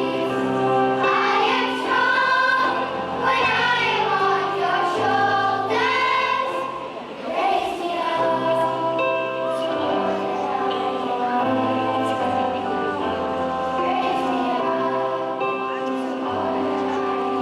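Music: singing voices, choir-like, over sustained instrumental chords with a bass line. The singing thins out about seven seconds in, leaving mostly held chords.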